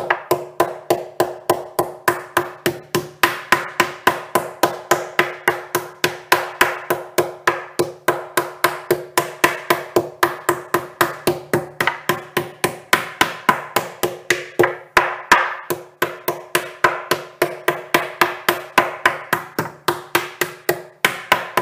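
Metal meat tenderizer pounding a thin slice of beef on a bamboo cutting board: a steady, rapid run of blows at about four to five a second, flattening the beef for rouladen.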